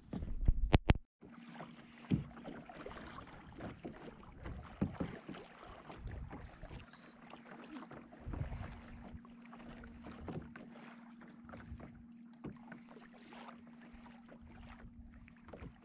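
Water splashing and lapping around a sea kayak, with scattered louder splashes and a faint steady hum underneath. A loud burst in the first second cuts off abruptly.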